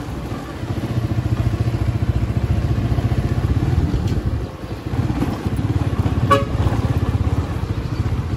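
Motorcycle engine running steadily at a close, even pulse. A short horn toot sounds about six seconds in.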